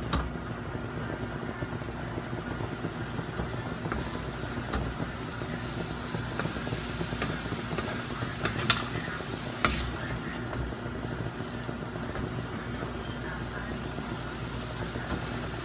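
Wooden spatula stirring and tossing stir-fried noodles and cabbage in a large metal wok, with a few sharp knocks of the spatula on the wok, the loudest about nine seconds in, over a steady low rumble.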